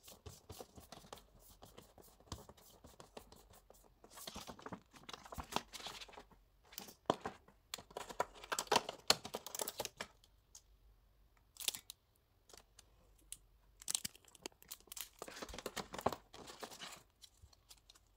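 Paper and thin card rustling and tearing in several irregular bursts as a folded paper calendar is opened out and flattened and a stack of cards is handled. There is a short sharp crackle about two-thirds of the way through.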